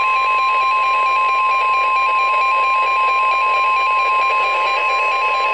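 NOAA Weather Radio 1050 Hz warning alarm tone: a loud, steady, unbroken tone that signals the start of an emergency alert broadcast, with a second tone alternating rapidly between two pitches alongside it.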